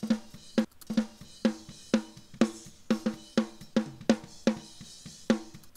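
Playback of a live-recorded snare drum track from its top microphone: a steady run of drum hits about every half second, each with a short ringing tone, with fainter cymbal ticks from the rest of the kit between them.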